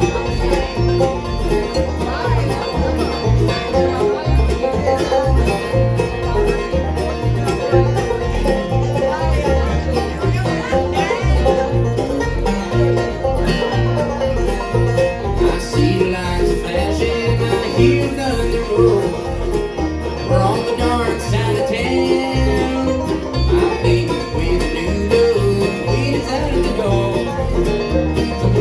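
Bluegrass band playing a song, with banjo picking over guitar and a steady bass beat.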